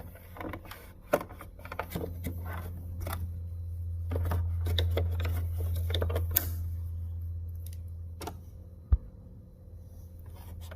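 Small clicks, taps and rattles of the sewing machine's parts being handled and cleaned, with one sharper click near the end. A steady low hum runs underneath and swells for a few seconds in the middle.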